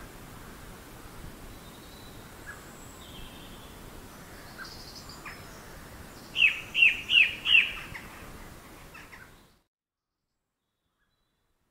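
Songbirds chirping over a steady background noise, with a run of four loud, quickly falling notes about six and a half seconds in. The sound fades out about two seconds before the end.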